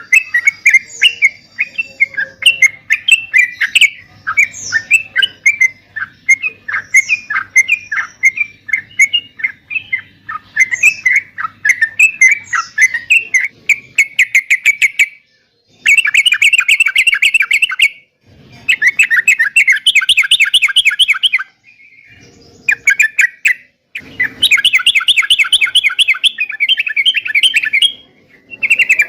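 Yellow-vented bulbul (trucukan) song: quick chattering phrases, then from about halfway, dense rapid trills in blocks of two to four seconds that cut off abruptly into short silences.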